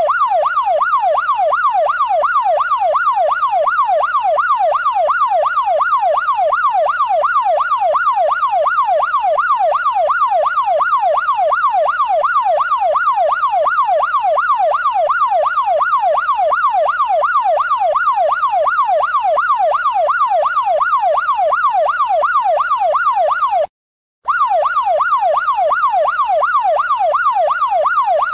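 Police siren in a fast yelp, its pitch sweeping rapidly up and down a few times a second. It cuts out briefly about 24 seconds in, then resumes.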